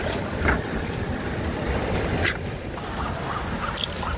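Steady low rumble of surf and wind on the microphone at the shore, with a couple of short sharp scraping clicks about half a second and two seconds in.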